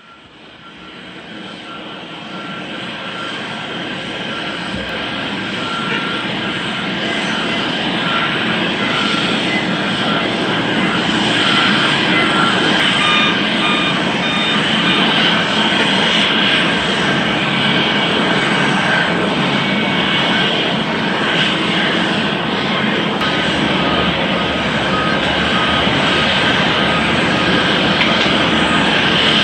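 Jet airliner engines, growing steadily louder over the first eight seconds or so, then holding level as a broad rushing noise with several high whining tones on top.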